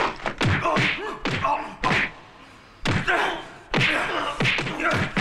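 Martial-arts film fight sound: a series of heavy punch and body-impact thuds, roughly one a second, with men's grunts and shouts of effort and pain.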